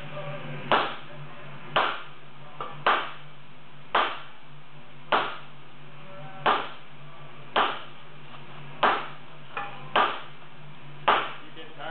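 Sledgehammers striking hot wrought iron as an anvil is forged: heavy blows about once a second, each with a short ring, and a couple of lighter taps between. A steady low hum runs underneath.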